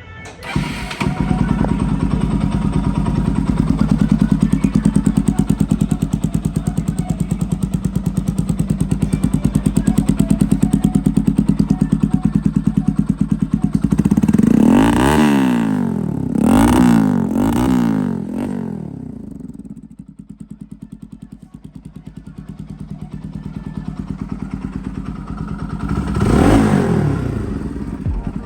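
Bajaj Pulsar NS200 single-cylinder engine idling with an even, fast pulse. About halfway through it is revved three times in quick succession, then it settles to a quieter idle and is revved once more near the end.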